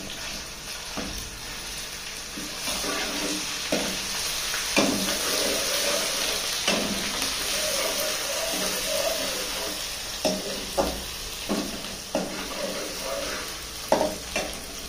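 Onions and ginger-garlic-green chilli paste sizzling in hot oil in an aluminium wok, while a steel ladle stirs and scrapes against the pan with knocks every second or so. The frying hiss swells louder through the middle.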